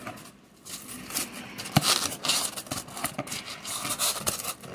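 Hands opening a cardboard box and pulling a cauldron planter out of its foam packing: scraping and rustling of cardboard and foam, with scattered sharp clicks.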